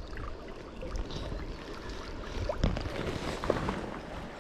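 Shallow river water running and sloshing around hands in the current, with a couple of light knocks past the middle.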